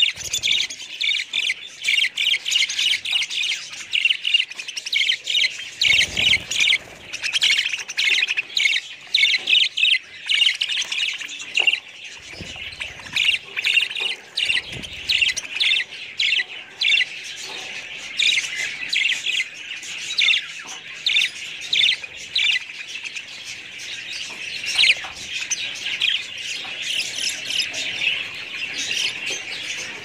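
A flock of caged budgerigars chattering: a dense, unbroken stream of rapid high chirps and warbles.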